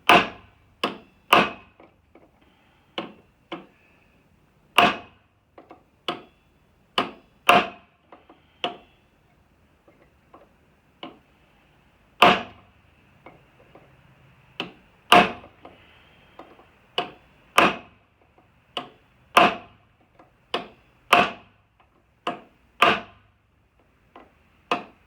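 Hammer blows on a pointed drift punch, driving at a seized woodruff key: a long series of sharp, irregularly spaced strikes, each ringing briefly, with a short lull partway through.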